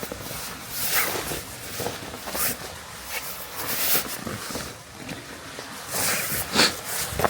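Footsteps crunching in fresh powder snow, boots fitted with chain spikes, an irregular step about every half second to a second.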